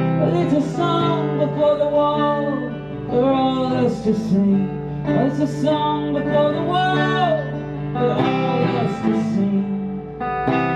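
A man singing a slow melody to his own acoustic guitar in a live solo performance. The voice drops out near the end while the guitar chords ring on.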